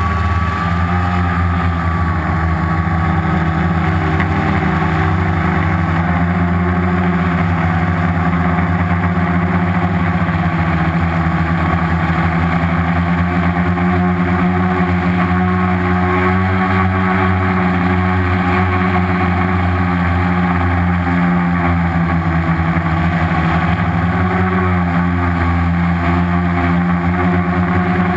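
Homemade quadcopter's four brushless outrunner motors (Turnigy 2217, 1050 kV) spinning 10x4.5 slow-fly propellers in flight, heard close up from the onboard camera. A loud, steady hum that shifts a little in pitch as the throttle is adjusted.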